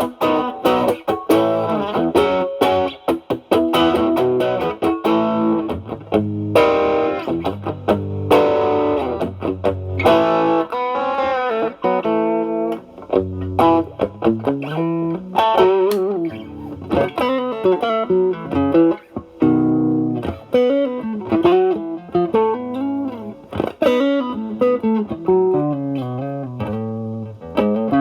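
Fender Stratocaster with single-coil pickups played through an Ibanez Tube Screamer Mini overdrive pedal, drive near 1–2 o'clock, into a Marshall Valvestate amp's clean channel, giving a mildly overdriven tone. Chordal picking in the first seconds gives way to single-note lead lines with string bends.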